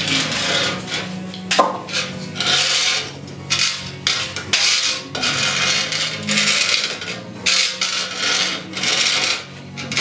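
Hand saw cutting wood in steady back-and-forth strokes, about three every two seconds.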